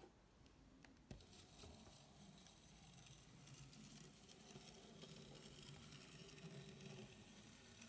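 Faint steady whir of a Bachmann WD Baldwin 10-12-D narrow-gauge (009/H0e) model locomotive's small electric motor and gears running on 3 V, with two light clicks about a second in.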